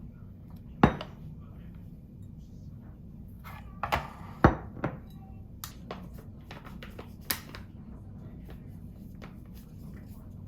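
Dishes and kitchen utensils knocking and clattering: one sharp knock about a second in, a quick cluster of clatters around the middle, then a few lighter clicks, over a steady low hum.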